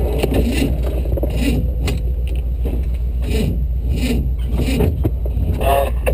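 Jeep engine running steadily at low revs as it crawls over rocks, with irregular knocks and scrapes from the tyres and chassis on the rocks.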